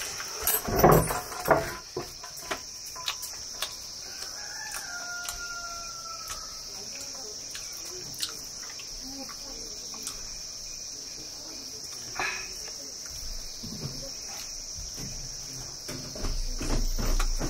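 Steady high-pitched buzz of insects, like crickets. About four seconds in, a rooster crows once, faint and drawn out. A few knocks and thumps sound in the first two seconds.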